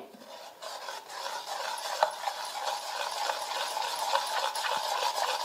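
Steel ladle stirring rice batter and tomato puree in a stainless steel bowl: a steady wet swishing with many small clicks of the ladle against the bowl.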